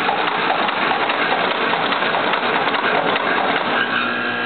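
An axial lead forming machine fed by a vibratory bowl feeder, running with a dense rapid clatter of loose components rattling and being cut and bent. About four seconds in, the clatter gives way to a steady hum made of several tones.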